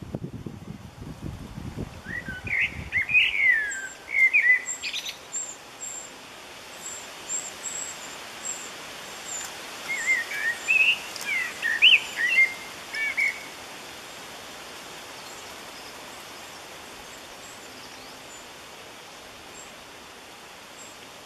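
Wrens at a nest box chirping in two quick bursts, about two seconds in and again around ten seconds, when an adult is at the hole and the nestlings beg. Faint high ticking calls come between the bursts, and a low rumble is heard in the first few seconds.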